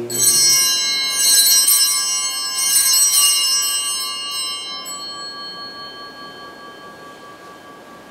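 Altar bells rung a few times as the chalice is raised at the consecration, their bright high ringing dying away slowly over several seconds.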